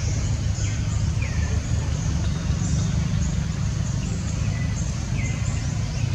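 Outdoor ambience: a steady low rumble with short, falling bird chirps about once a second.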